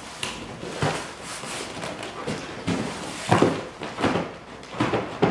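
Cardboard handling: a boxed incubator is slid and lifted out of its cardboard shipping carton, with cardboard rubbing and scraping and several dull knocks, the loudest about three and a half seconds in.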